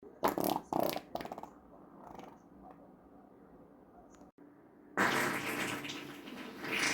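Person farting: three or four short, loud blasts in the first second and a half, then quieter sputters. About five seconds in, a new, louder, rapidly fluttering fart starts abruptly and carries on.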